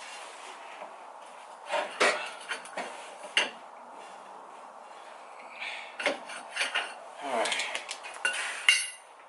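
Metal tools and parts clinking and knocking: a scatter of separate clanks and rattles, with a busier run of them in the last few seconds.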